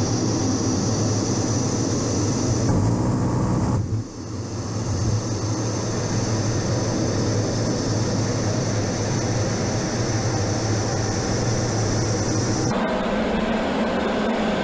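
Steady in-flight cockpit noise of an A-10 Thunderbolt II: airflow rushing over the canopy with the hum and high whine of its twin TF34 turbofan engines. The sound dips briefly about four seconds in and changes abruptly near the end.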